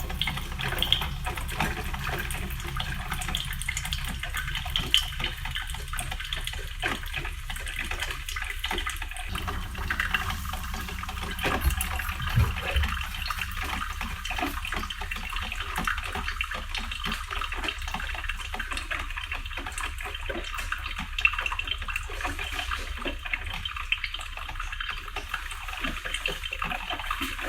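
Black & Decker 12-cup drip coffee maker brewing: a steady crackling hiss and gurgle of hot water being pushed up and dripping through, over a low hum.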